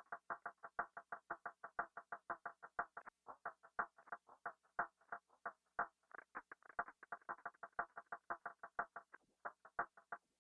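Arturia Pigments software synthesizer playing a fast run of short, plucky notes, about six a second with a few brief gaps, their tone dulled by a low-pass filter.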